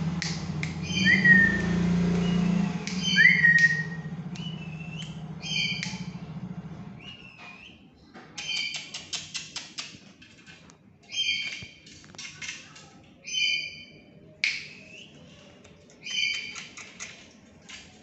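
Black-capped lory giving short, harsh squawks, repeated about every one to two seconds. Two louder sharp gliding notes come about one and three seconds in, over a low steady hum that fades out by about seven seconds.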